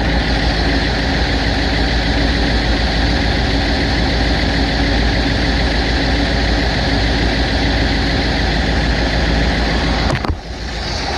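Classic Ford's engine idling steadily under the open hood. A sharp knock comes about ten seconds in, with a brief dip in level just after.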